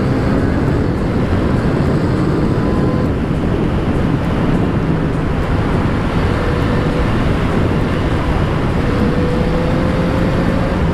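Yamaha XJ6 motorcycle's inline-four engine running at a steady speed while riding, under a loud, even rush of wind noise; the engine note rises slightly near the end.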